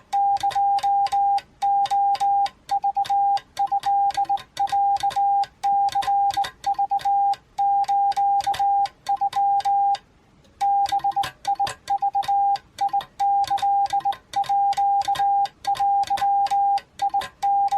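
Japanese Wabun Morse code sent on a Hi-Mound BK-100 semi-automatic bug key: a steady beep keyed in quick runs of dots and longer dashes, each element marked by a sharp click of the key's arm and contacts. The sending stops briefly about ten seconds in, then carries on.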